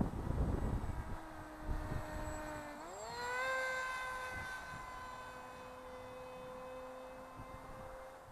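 Electric motor and propeller of a radio-controlled foam flying wing whining steadily, its pitch rising quickly about three seconds in as the throttle opens, then holding high. Wind buffets the microphone in the first second.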